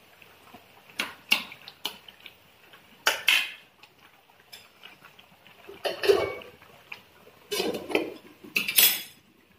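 Kitchen dishes and utensils clattering and knocking as they are handled, in several separate short bursts a second or two apart, the loudest about six seconds in and near the end.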